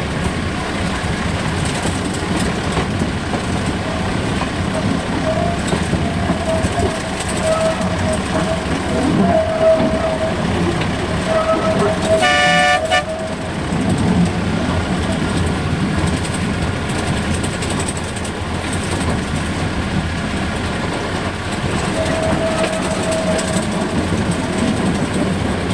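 Malcolm Moore narrow-gauge locomotive and train running steadily along 2-foot gauge track, heard from the carriage just behind it. A short horn toot sounds a little past halfway, and a thin steady whine comes and goes.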